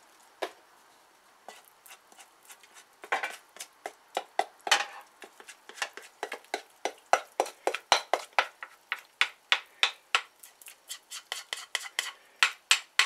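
A spatula scraping and knocking against a mixing bowl as sticky bread dough is scraped out into a metal baking pan. It is a quick run of short scrapes and clicks, a few at first and then about three a second from around three seconds in.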